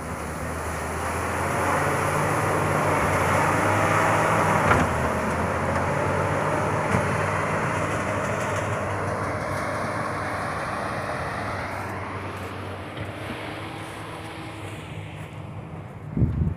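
Bulldozer's diesel engine working hard as it pushes avalanche snow, the engine noise swelling over the first few seconds and then slowly easing off. A brief thump near the end.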